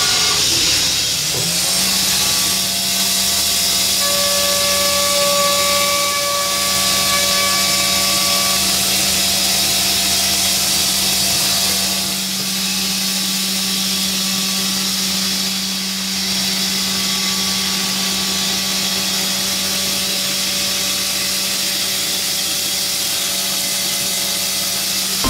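Mazak VARIAXIS j-600/5X AM five-axis machining centre milling an aluminium alloy part: a steady spindle whine of several tones over the hiss of coolant spray. The tones glide up in pitch about a second and a half in, then hold steady.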